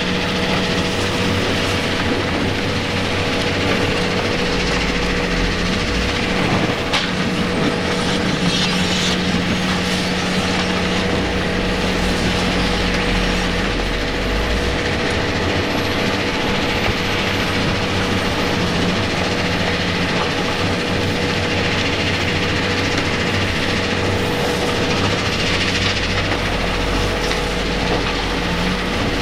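Rock crushers running: a loud, steady mechanical din with a constant hum, and the Cat 345DL excavator's diesel engine working beneath it. There is one sharp knock about seven seconds in.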